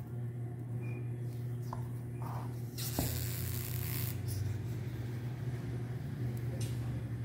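A rubber band being stretched and wrapped around a two-part plaster mould: a click about three seconds in, then a brief scraping hiss of rubber over plaster, over a steady low hum.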